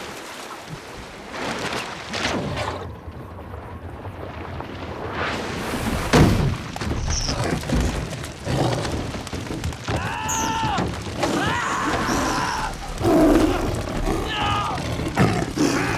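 Film sound-effects mix of flying fish hitting a wooden lifeboat: a run of thuds and slaps, with a heavy thump about six seconds in as a large tuna lands. Loud cries follow from about ten seconds in.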